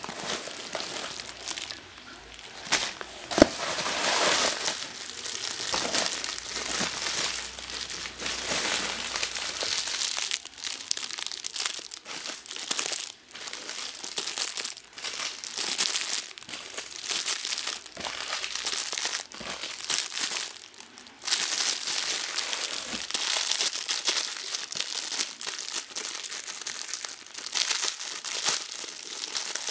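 Clear plastic bags crinkling and rustling as hands handle and pull them open, with the paper wrapping of a parcel rustling near the start.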